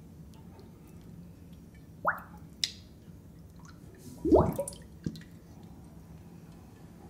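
A few short, separate handling sounds as something is set down and moved on a wooden floor: a quick squeak rising in pitch, a sharp click, then the loudest, a thud with a squeak, about four seconds in, and a last click.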